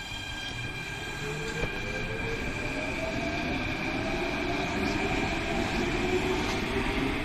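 Athens Metro second-generation electric train pulling out of the station, its traction motors whining in rising tones as it speeds up over a growing rumble of wheels on rail. A single sharp click sounds about a second and a half in.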